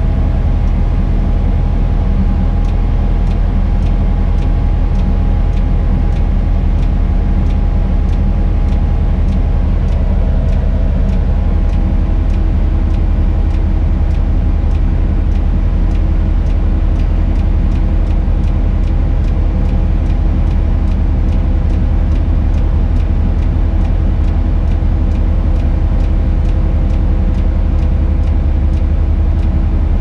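Tadano 180G-5 crane's engine running steadily, heard from inside the operator's cab. A faint, regular ticking runs over the engine.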